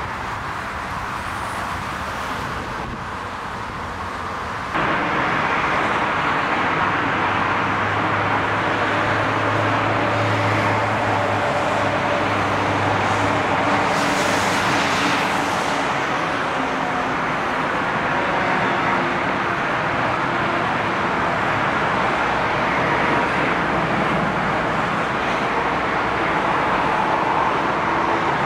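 Jet engine noise from an Airbus A380 on the ground. About five seconds in it jumps abruptly to the loud, steady noise of another A380's four Rolls-Royce Trent 900 engines at takeoff power as it rolls down the runway, with a low hum under it.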